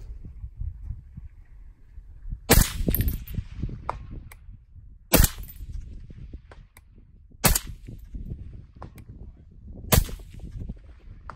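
Four shots from a suppressed .308 AR-10 semi-automatic rifle, fired at a slow, even pace about two and a half seconds apart. The rifle runs on a JP adjustable gas block under a Dead Air Nomad suppressor, and it cycles fine.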